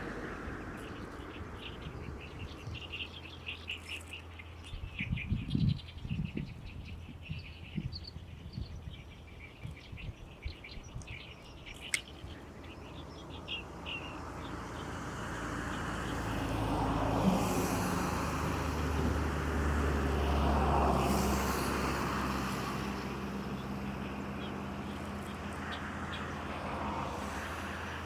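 Great reed warbler singing its harsh, rapid, chattering song for about the first half, then fading out. After that a passing engine's steady low drone swells up and slowly fades away.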